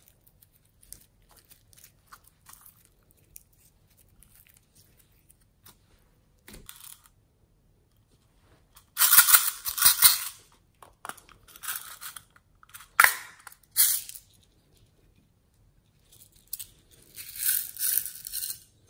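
Quiet handling of slime with faint small clicks, then loud crackling as a plastic pizza-slice toy container is handled about halfway through, followed by two sharp plastic clicks. Near the end, orange sprinkles pour from a plastic container onto the slime with a rattling hiss.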